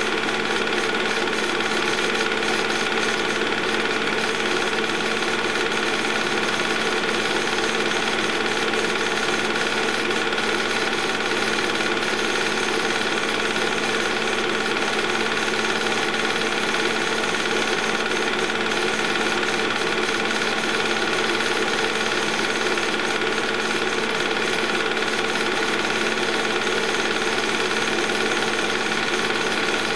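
Movie projector running: very loud, steady mechanical noise, a fast, even rattle of the film mechanism over the steady hum of its motor.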